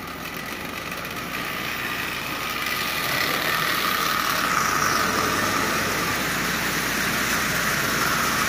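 Marx 999 tin toy steam locomotive running forward on tinplate track, pulling a long train of tin lithographed cars. Its electric motor and the wheels make a steady rumble, which grows louder over the first few seconds as the train comes close.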